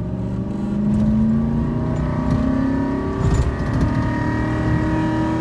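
Ford F-150 pickup's engine accelerating hard: its pitch climbs, drops about three seconds in as the automatic transmission upshifts, then climbs again. The shift goes through without hanging, on a high-mileage transmission freshly refilled after sticking in third.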